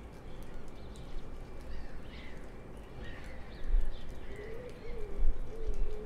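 Morning bird ambience: scattered short high chirps and calls from several small birds, joined in the last second and a half by a low, wavering cooing call like a pigeon's. Two low bumps stand out, one past the middle and one near the end.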